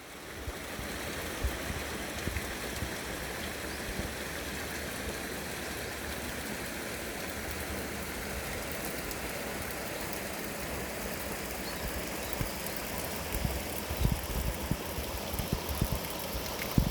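Stream water running down over rocks in a steady rush. A few low thumps come in the last few seconds.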